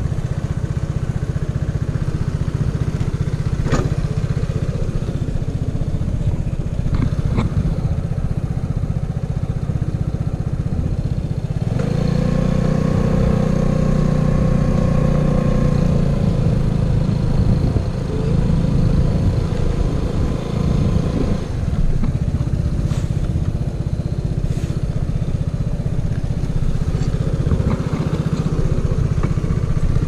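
Vespa Sprint scooter engine idling, then pulling away and running under throttle from about twelve to twenty-one seconds in, its pitch rising, before settling back to idle.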